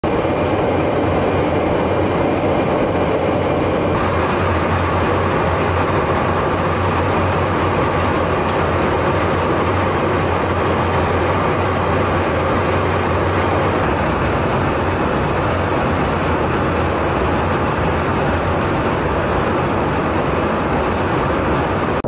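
Steady roar of airflow and engine drone heard from inside a KC-135 Stratotanker in flight during aerial refueling, with a low hum under it. The sound changes abruptly twice, about 4 and 14 seconds in.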